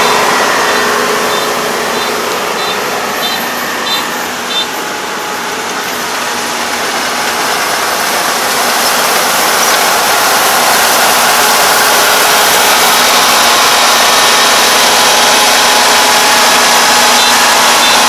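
Kubota ER470 combine harvester running under load, cutting and threshing flattened rice: a steady, dense engine and machinery noise that eases a little early on and grows louder from about eight seconds in as the machine comes close. A faint high beep repeats about every half-second during the first few seconds.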